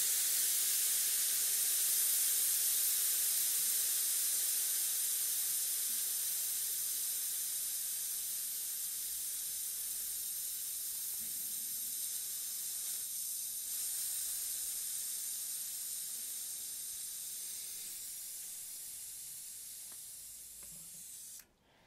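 Compressed air hissing out of an open bicycle tyre valve as the tyre is let down from about 4.5 bar, starting abruptly, slowly weakening as the pressure falls, and stopping suddenly near the end.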